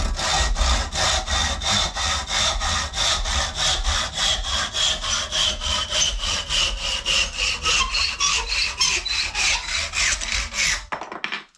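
Hand panel saw cutting through two oak handle blanks clamped in a vise, in quick, even back-and-forth strokes, about three to four a second. The sawing stops near the end.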